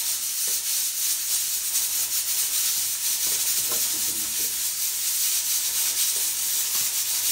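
Soft background music with a steady high hiss running under it.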